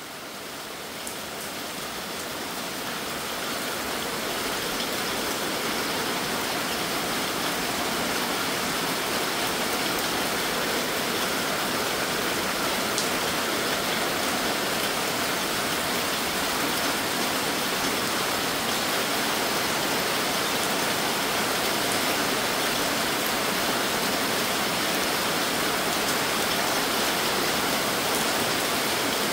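Heavy rain pouring steadily on a sheet-metal roof and puddled concrete, swelling over the first few seconds and then holding.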